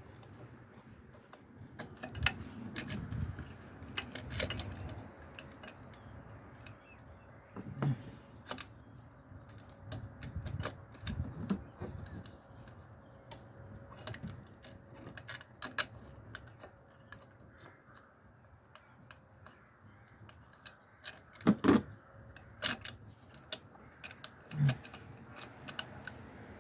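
Irregular light clicks, clinks and taps of hand work with tools and parts on fuel-system fittings, with a few duller knocks, the loudest cluster a little over three quarters of the way through.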